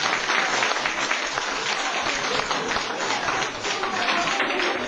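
Audience clapping, a dense patter of many hands, with voices mixed in.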